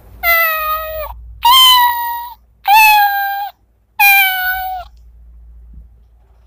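A recorded cat meowing four times, played through a children's sound board book's small speaker when its cat button is pressed. Each meow lasts under a second and bends in pitch.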